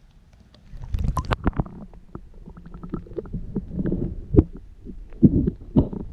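Water gurgling and sloshing around a camera lowered into a clear spring, heard muffled underwater: a low rumble with an irregular string of sharp knocks and pops, loudest around one second in and again near the end.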